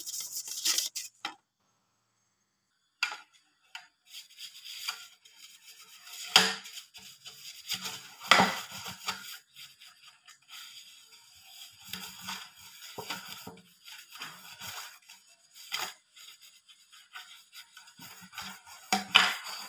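Pastry brush scraping and dabbing around the inside of a round aluminium cake pan, greasing it, with light knocks of the thin metal pan being handled. The strokes come in irregular bursts, with a short pause about two seconds in.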